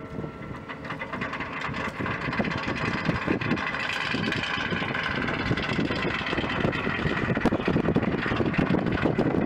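Small boat's engine running, getting louder from about two seconds in as it motors, with a steady whine over the churning.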